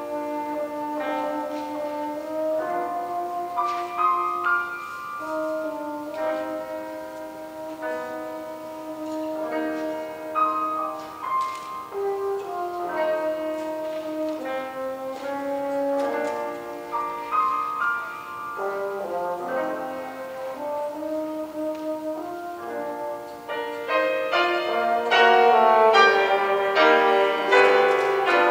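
French horn playing a slow melody of held notes, with grand piano accompaniment; it swells louder and brighter about twenty-four seconds in.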